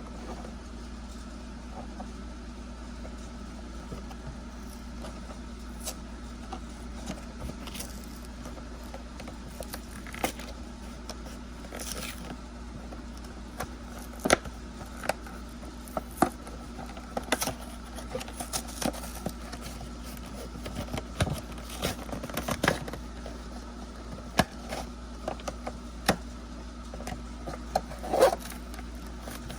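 Hands handling and opening figurine-set packaging: scattered clicks, scrapes and crinkles, growing busier about halfway through, over a steady low hum.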